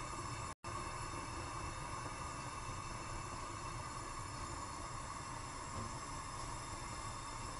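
Gas stove burner hissing steadily under a saucepan of milk that is heating toward the boil. The sound cuts out for an instant about half a second in.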